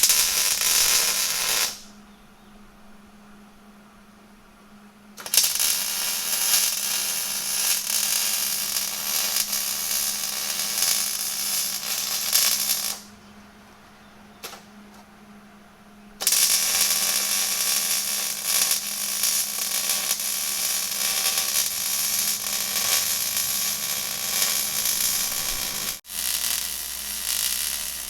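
Ratchet straps being cranked tight, a rapid clicking ratchet in long stretches with pauses between them, as the car is tied down to a frame-straightening machine. A steady low hum runs underneath.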